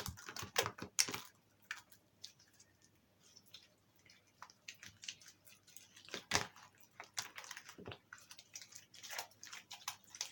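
Jelly slime mixed with toothpaste being squeezed and kneaded by hand: irregular wet squishes and clicks, with a quieter pause about two to four seconds in.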